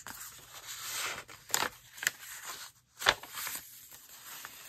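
Paper and card rustling and scraping as the pages of a junk journal made from an old hardback children's book are handled and turned, with a few sharp crackles.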